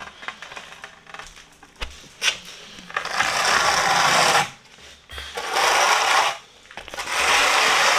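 Notched steel trowel scraping through tile adhesive on the floor in three long strokes, each about a second long, with short pauses between.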